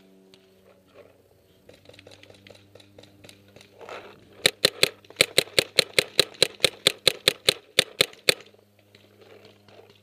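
Paintball marker firing a rapid string of about twenty shots, roughly five a second, for about four seconds from just before the middle. The marker is fed from an Empire Prophecy loader.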